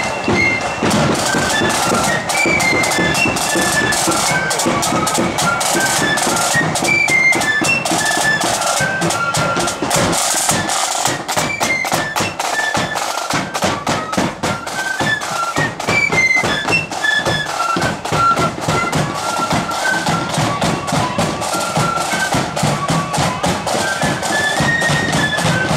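Blood-and-thunder marching flute band playing: a melody on flutes over rapid snare drum rolls and a steady bass drum beat.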